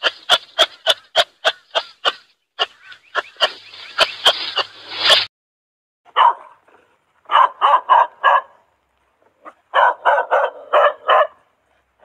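Dogs barking: a fast run of short, sharp yips, about four a second, for roughly the first five seconds, then, after a short pause, quick groups of three or four barks.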